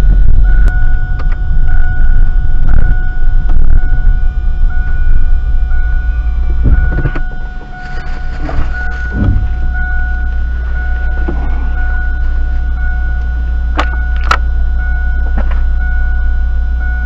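Car engine and road noise heard from inside the cabin while driving, a heavy uneven rumble. About seven seconds in it changes to a steady engine idle drone. Near the end, a few sharp knocks and clicks are heard over it.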